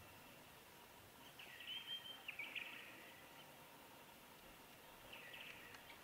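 Faint calls of a wild bird: a chattering call with a short held high note about a second and a half in, and a shorter burst of the same near the end, over a quiet steady outdoor background.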